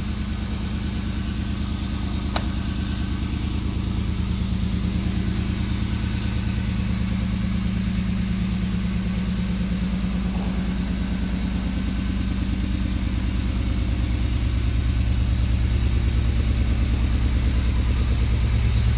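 A 1959 Mercedes-Benz 219's straight-six engine idling steadily, a little louder near the end. There is a single sharp click about two seconds in.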